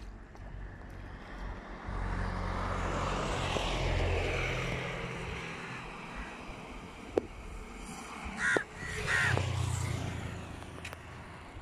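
A motor vehicle going past, its engine and road noise swelling over a couple of seconds and then fading, with a second, shorter swell of engine hum later on. A crow caws twice near the end.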